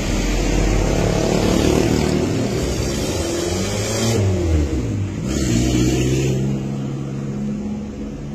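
Street traffic passing close: vehicle engines and tyres, with one engine's pitch falling as it goes by about four seconds in, then a motorcycle engine approaching near the end.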